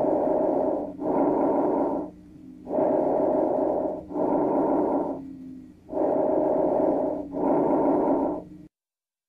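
Breath sounds heard through a stethoscope: three breaths, each an in-breath and an out-breath of about a second with a short break between them, the out-breath as loud as the in-breath.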